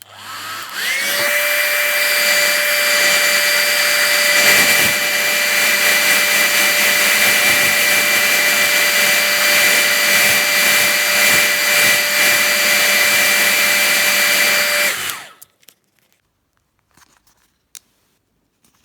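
Handheld hairdryer switched on, spinning up with a rising whine in its first second, then running steadily with a high whine over the rush of air, and switched off about 15 seconds in.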